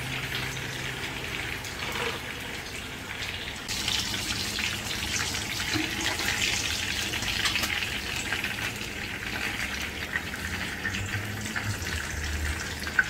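Fish shallow-frying in hot oil in a non-stick pan: a steady sizzle full of small crackles, which grows louder about four seconds in.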